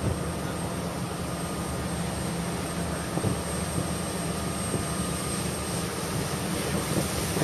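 Boat engine running steadily: a constant low drone under a hiss of wind and water, heard on deck while the boat is underway.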